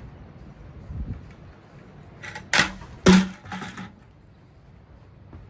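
Hard objects knocking and clattering: a dull thump about a second in, then a cluster of sharp knocks near the middle, the loudest two about half a second apart.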